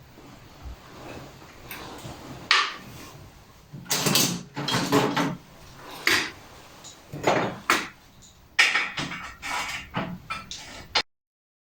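Metal parts and tools handled on a workbench: a run of irregular clanks, knocks and short scrapes, cutting off suddenly near the end.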